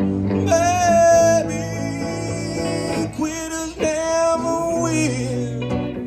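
Live blues-country song played on two hollow-body electric guitars, with long held melody notes that bend into pitch twice over the strummed chords.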